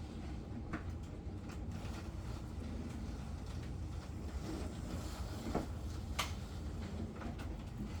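Plastic John Deere toy combines being pushed along a play field: a steady low rolling rumble with a few sharp clicks and knocks of plastic.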